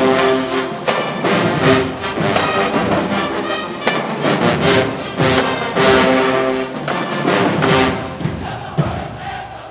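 Marching band playing: a full brass section sounding loud sustained chords over drumline hits. The sound thins out and drops in level near the end.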